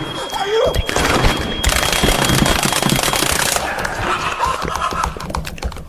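A loud, dense jumble of layered sound effects, with a thin high tone held through the first half and a fast run of crackling pops near the end.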